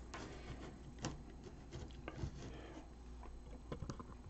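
Faint handling noise at a workbench: a few light clicks and taps, one sharper about a second in and a small cluster near the end, over a low steady hum.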